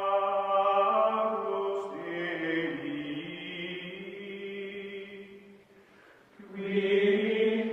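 Outro music of long held choir-like chanted tones, sustained as a chord. The tones shift about two seconds in, fade down about six seconds in, and swell back in near the end.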